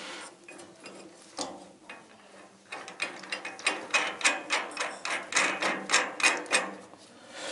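Ratchet spanner clicking on a bolt, first a few single clicks, then a steady run of about three clicks a second through the second half, as a nut-and-bolt jack is wound to line up the boat's prop shaft.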